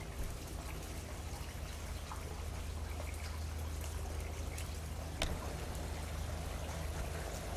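Steady outdoor background noise, a hiss like trickling water over a low hum, with a single sharp click about five seconds in.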